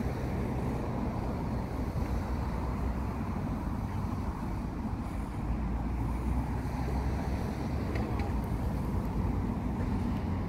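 A car engine idling: a steady low rumble with an even hum underneath.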